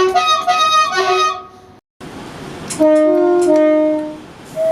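British train's two-tone air horn sounding: a short sequence alternating between high and low notes, then a longer blast that steps down from the high note to the low one, and a brief toot near the end.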